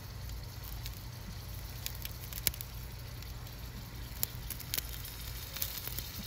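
Wood fire crackling inside a Gozney Dome pizza oven: scattered sharp pops, the loudest about two and a half seconds in, over a steady low rumble of the flames. Zucchini in the hot cast iron skillet sizzle faintly.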